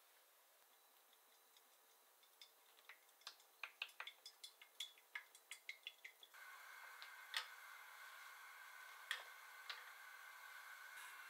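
Faint kitchen sounds: a quick, irregular run of small clicks and taps, then from about six seconds in a steady gas-burner hiss with a few sharp ticks.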